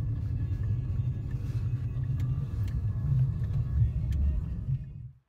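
Low, uneven outdoor rumble with a few faint clicks, cutting off about five seconds in.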